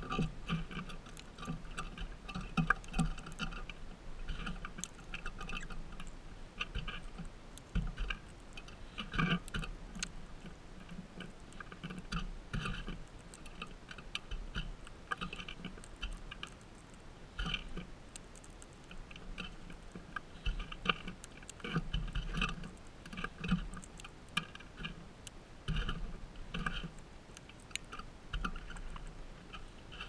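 Crimson rosellas cracking sunflower seeds in their beaks close by: an irregular run of small clicks and crunches.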